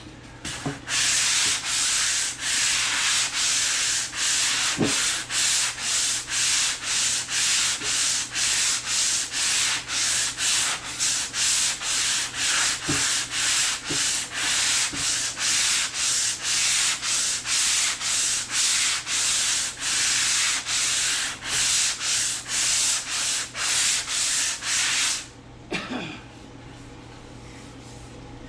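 Hand block-sanding a car body panel with 80-grit self-adhesive sandpaper on a pool-noodle sanding block. Steady back-and-forth rasping strokes, about two a second, stop near the end.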